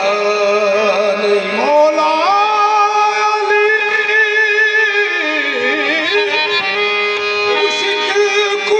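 Qawwali singing: a male voice holds long notes, sliding up between them and dipping and rising again about two thirds of the way in, over the steady reedy sound of harmoniums.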